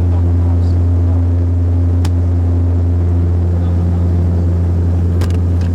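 Embraer 120 Brasilia's Pratt & Whitney PW118 turboprop engines and propellers running steadily, heard inside the cabin as a loud, even low drone. A couple of light clicks sound about two seconds in and near the end.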